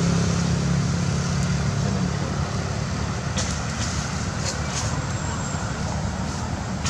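Low steady rumble of a motor vehicle engine that fades out over the first two seconds or so, leaving a steady low hum of distant traffic. A few faint light clicks come in the middle.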